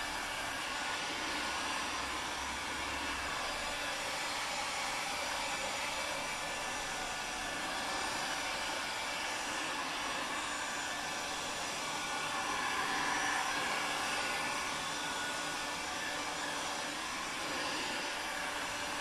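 Black & Decker heat gun running, blowing a steady rush of hot air over heat-shrink plastic film to shrink it tight around a wooden board. The rush swells slightly about two-thirds of the way through.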